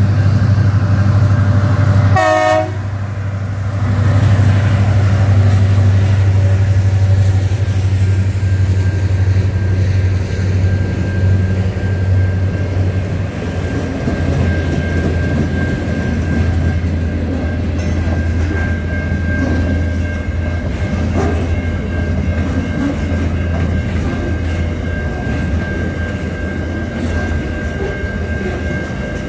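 Aurizon freight train's diesel locomotives running through a level crossing with a steady low engine rumble, and a short horn blast about two seconds in. From about halfway through, the freight wagons roll past with wheels clattering over the rails.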